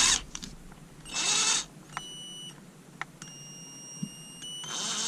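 Cheap 12 V cordless drill run briefly by its trigger: a short spin about a second in, then a steady high-pitched whine at very low trigger pressure, stepping up in pitch and getting louder near the end.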